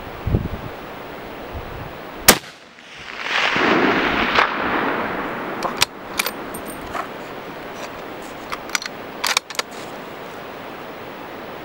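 A single .308 Howa 1500 rifle shot cracks about two seconds in, followed by a rushing echo that swells and fades over the next few seconds. A few sharp clicks come after it.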